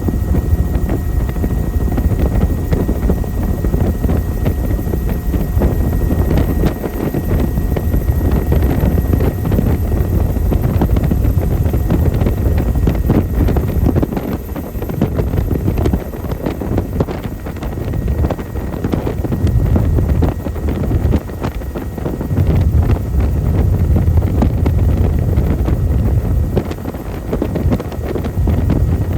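Helicopter in flight heard from on board: a heavy low rotor and engine rumble that swells and dips, mixed with wind buffeting the microphone, and a faint steady whine above it.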